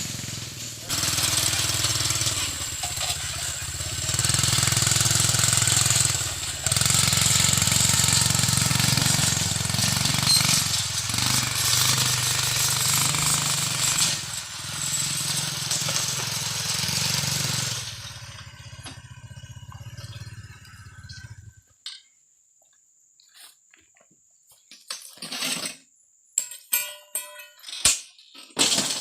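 Small engine of a motorized oil palm fruit carrier (grakula) running steadily with a rattle, hauling its load. It stops about three-quarters of the way through, followed by a few scattered knocks and clicks.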